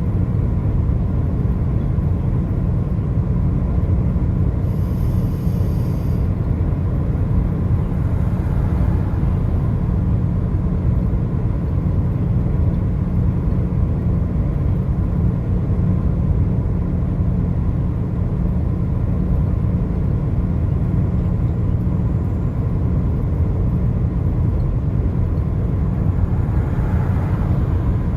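A car's steady low road rumble from tyres and engine while driving along the interstate.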